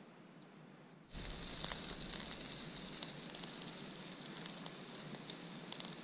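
Pork shashlik skewers sizzling over hot coals in a mangal, a steady hiss with scattered crackles that starts suddenly about a second in.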